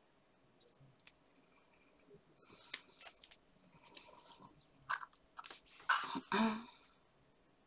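A small paper cut-out flower being bent and shaped between the fingers: light crinkling and rustling of paper with a few small clicks. The loudest rustle comes near the end, as the flower is pressed onto the card.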